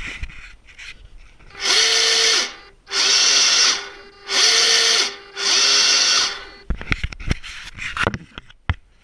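Sail winch servo in an RC yacht hull running in four short bursts of just under a second each. Each burst is a motor whine that ramps up and stops cleanly. A few light knocks follow near the end.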